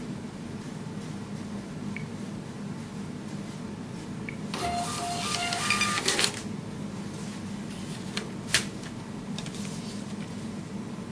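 Star TSP654 thermal receipt printer printing a receipt: about a second and a half of fast whirring paper feed with short repeated tones, ending in a couple of sharp clacks as the auto-cutter cuts the paper. A single sharp click follows about two seconds later, over a low steady hum.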